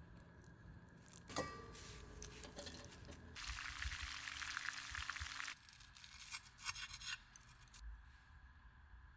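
A sharp clink with a brief ring, then about two seconds of crackling hiss, typical of shrimp frying in hot oil, ending abruptly, followed by scattered small crackles.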